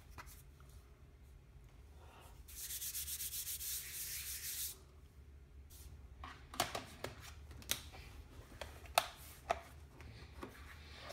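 Quiet handling sounds: an iPad Pro rubbing and sliding against a Targus tablet case for about two seconds, then a scatter of light clicks and taps as it is pressed into the case's holder.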